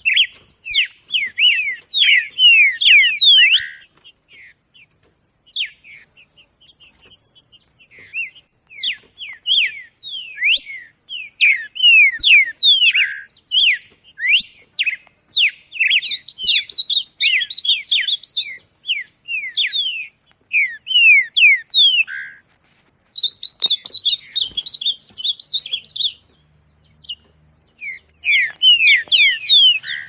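Songbird song: fast runs of quick downward-sweeping whistled notes, coming in bursts with short pauses between, over a faint steady high tone.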